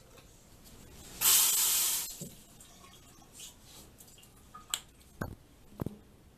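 Bathroom sink tap running in a short gush of about a second, then a few light clicks as a toothpaste tube and toothbrush are handled.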